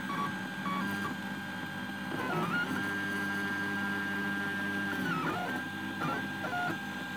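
3D printer's stepper motors whining steadily as the print head travels over the bed during Hall-sensor automatic bed levelling. The whine dips in pitch and comes back about three times as the head slows, stops and moves off again.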